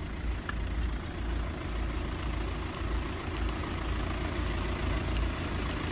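Low, steady rumble of vehicle engines idling in a stationary traffic queue, with a few faint ticks.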